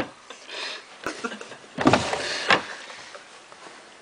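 A few short scraping and rubbing sounds of something being slid and handled, the loudest about two seconds in.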